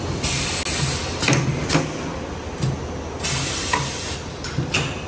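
Automatic air fryer paper liner forming machine running: a steady mechanical hum with about five short clacks from its moving parts, and two bursts of hissing air, one near the start and one about three seconds in.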